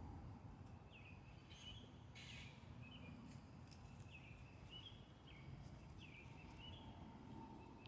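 Faint outdoor ambience: a small bird chirping repeatedly, short high calls about once a second, over a low steady rumble.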